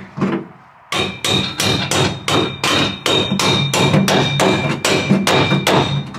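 Hammer blows on a steel roll cage, about three a second for several seconds, with a steady high ringing tone under the strikes: the cage being knocked and wedged into place in the car.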